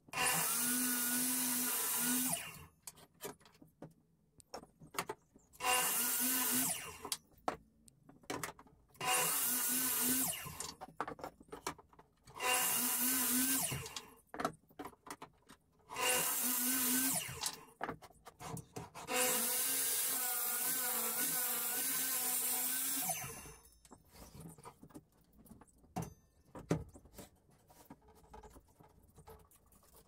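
Metabo mitre saw making six short cuts through a wooden board: each time the motor comes up with a whine and the blade runs through the wood for one to two seconds, the last cut lasting about four seconds. Light knocks of the wood being handled come between the cuts.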